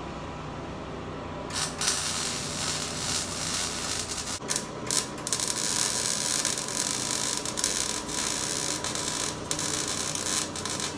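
Electric arc welding on a steel square-tube frame: a continuous crackling sizzle that starts about a second and a half in, with a couple of brief breaks around the middle.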